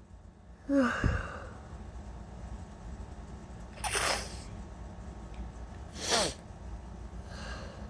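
A woman sneezing from allergies: a short voiced catch of breath about a second in, then two sharp sneezes about two seconds apart, the second one louder.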